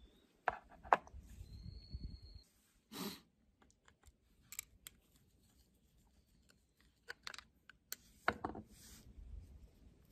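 Scattered light clicks and small metallic taps from a wing mower's carburetor and a screwdriver as the carburetor is handled and taken apart, bunched around a second in and again near the end.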